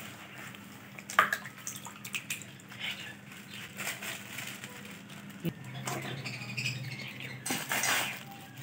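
A steel spoon scraping and clinking against a steel pot now and then, with a sharp clink about a second in and another about five and a half seconds in, over a low steady hum.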